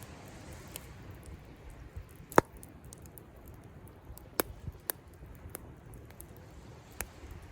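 Wood campfire crackling, with a scatter of small ticks and a few sharp pops, the loudest about two and a half seconds in. Underneath runs a faint low rumble of surf.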